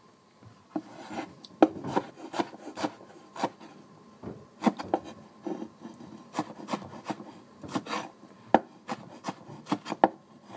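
A broad-bladed cleaver slicing strawberries on a wooden cutting board: quick, irregular knocks of the blade on the wood, about three a second, starting about a second in.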